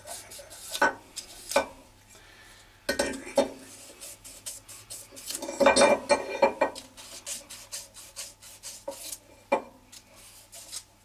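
A Rotax Max 125cc aluminium crankcase half and small metal parts handled on a stone workbench: scattered clinks and knocks of metal on metal and stone, with rubbing between. The loudest run of knocks comes about six seconds in.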